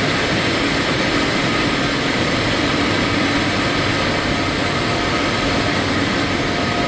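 Steady drone of running juice-plant machinery, with a couple of faint steady whines over a dense noise.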